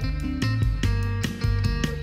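Background music: plucked guitar notes over a bass line.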